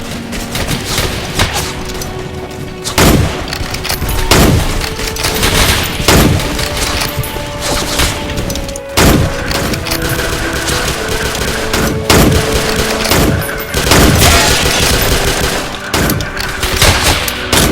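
Gunfire sound effects, rapid volleys and machine-gun bursts, with a loud shot or blast every one to three seconds, over music with held tones.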